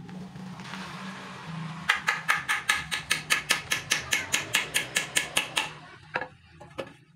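A hammer striking in quick, even taps, about five a second for nearly four seconds, each with a metallic ring. A rustling noise comes before the taps and a few lighter knocks after them.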